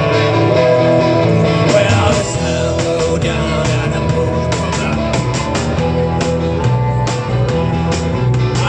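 Rock band playing an instrumental intro: electric guitar riff over a steady bass line, with drums joining about two seconds in.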